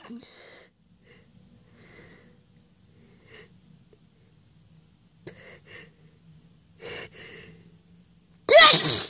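Short, wheezy catching breaths, five or six spread apart, as a sneeze builds during a sneezing fit, then one loud, forceful sneeze near the end.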